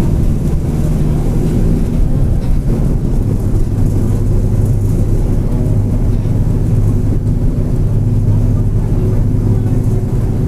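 Mercedes-Benz OF-1722M bus driving, its engine and drivetrain running steadily with the differential growling. The strongest part of the drone drops lower about three seconds in.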